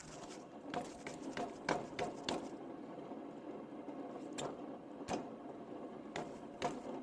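A raised rear wheel on a kei car turning by hand: its worn-out wheel bearing rumbles steadily, with irregular clicks. The bearing is failed and the wheel has play; this is the noise that sounds like an aircraft turbine from the back of the car when driving.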